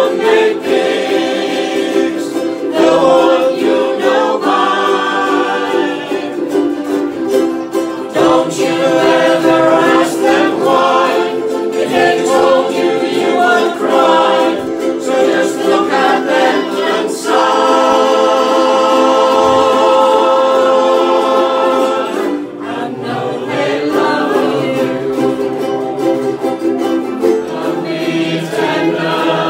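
A ukulele band strumming while its members sing together, men's and women's voices in a group. In the second half the group holds one long chord for several seconds, followed by a brief dip in loudness before the song goes on.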